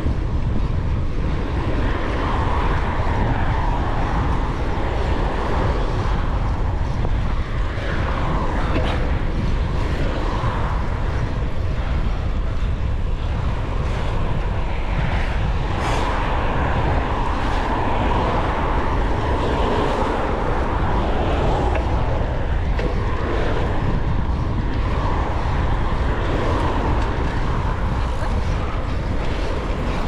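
City traffic heard from a moving bicycle: a steady rumble of cars and road noise, with wind rushing over the microphone from the ride.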